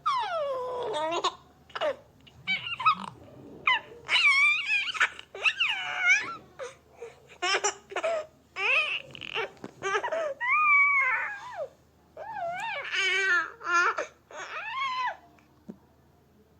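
A baby's high-pitched vocalising: bursts of babbling, cries and laughs with sliding pitch, which stop about a second before the end.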